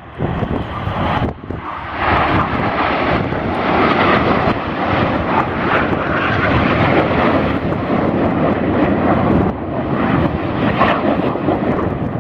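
A fixed-wing display aircraft flying past, its engine noise loud and steady. The noise swells about two seconds in and holds.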